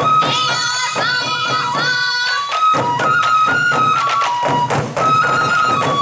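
Sansa odori music: a troupe of shoulder-slung taiko drums beaten together in a steady rhythm, with a high bamboo-flute (fue) melody stepping over them.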